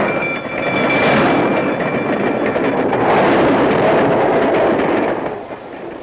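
A train passing close by, its wheels running over the rails, easing off near the end. A railroad crossing bell rings steadily over the first couple of seconds.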